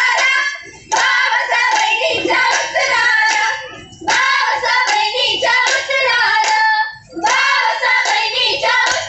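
Women singing a Goan fugdi folk song together with rhythmic hand-clapping, in phrases of about three seconds with short breaks between them.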